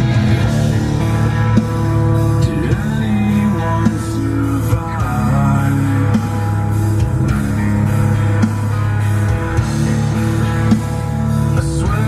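A rock song with guitar and singing plays steadily.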